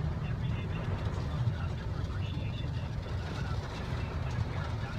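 Steady low rumble of a running car heard from inside its cabin, in slow traffic.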